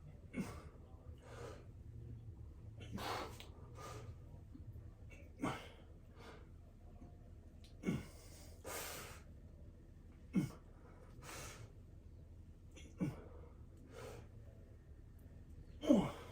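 A person breathing heavily, with a short, falling, grunt-like exhale about every two and a half seconds and audible breaths in between.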